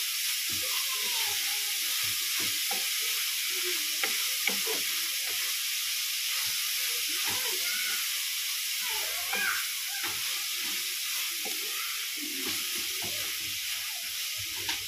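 Chopped onion leaves and coriander sizzling steadily in hot oil in a frying pan, stirred with a wooden spatula, with a couple of sharp clicks about four seconds in.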